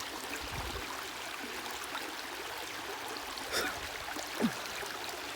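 Shallow creek water running and trickling steadily, with a brief short sound about four and a half seconds in.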